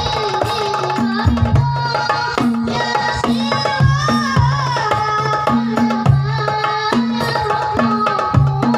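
Shalawat music: hand drums play a steady repeating rhythm of low, pitch-bending bass strokes and lighter hits, under a wavering, ornamented melody.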